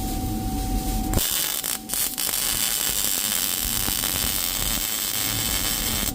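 Arc welding on a steel T joint: the arc strikes about a second in and crackles steadily, with a brief break near two seconds, then stops suddenly near the end.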